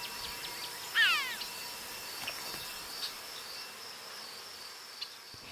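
Red-billed chough giving a single descending call about a second in, over a faint, steady high chirring of insects.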